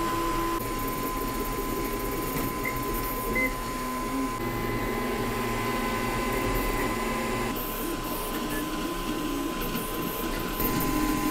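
Anycubic Kobra S1 CoreXY 3D printer printing at high speed. Its stepper motors whine in short tones that keep changing pitch as the print head darts about, over a steady high hum.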